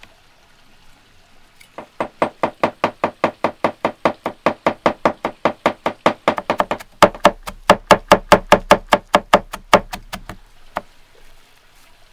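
Kitchen knife chopping rapidly on a wooden cutting board, about five even strokes a second, with a brief pause about two-thirds of the way through before the chopping resumes.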